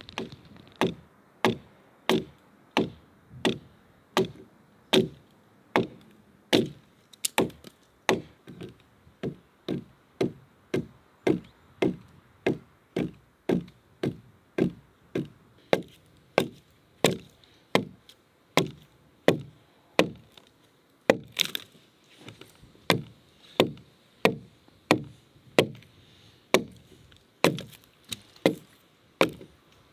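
Broad-bladed axe chopping into a peeled log while cutting a notch: steady blows, a little under two a second, with one louder blow about two-thirds of the way through.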